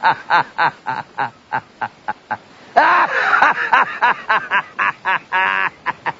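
A person laughing in a long fit: short pitched bursts about three or four a second, a louder, drawn-out laugh about three seconds in, then more bursts and a shaky, drawn-out laugh near the end.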